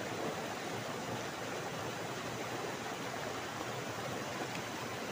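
Steady, even rushing of a stream's water.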